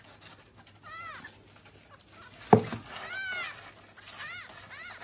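Very young kitten mewing: several short, high-pitched mews in three bouts, about a second apart. About halfway through there is a single sharp knock, the loudest sound.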